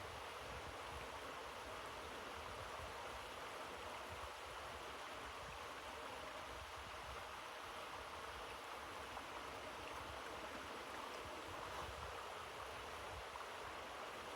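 A steady, even rushing noise, level throughout, with no distinct knocks or impacts.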